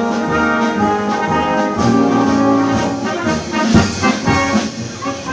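Brass band music: trumpets and trombones playing sustained chords and a melody, with a low drum thump near the middle.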